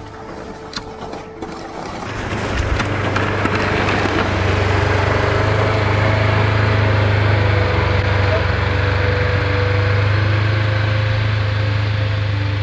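Kubota compact tractor's diesel engine running steadily, coming up loud about two seconds in.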